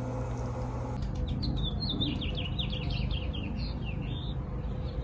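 A small songbird singing a quick, warbling run of chirps, many sliding down in pitch, from about a second in until near the end, over a steady low outdoor rumble. A steady hum comes before it in the first second.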